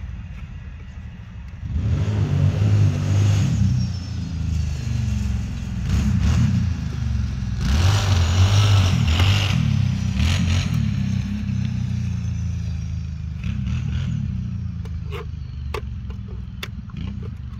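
An engine running close by, swelling about two seconds in, loudest around eight to nine seconds, then slowly fading. A few sharp clicks near the end.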